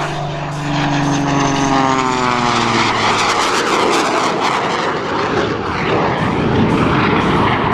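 Jet Waco biplane flying past. Its Pratt & Whitney 985 nine-cylinder radial engine and three-bladed Hartzell propeller drone, with a pitch that falls over the first three seconds as it passes. The sound then turns into a louder, rougher roar.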